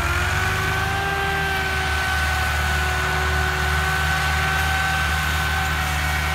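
Massey Ferguson 385 and Ford 3610 tractors' diesel engines running steadily under heavy load while pulling a loaded trolley in tandem: a low drone with a steady whine over it.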